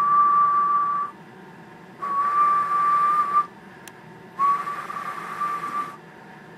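A person whistling one steady note into the microphone of a keyed RCI 39 VHP Plus 10-meter radio, a whistle test to read its peak (PEP) output power. Three held whistles: the first breaks off about a second in, then two more of about one and a half seconds each.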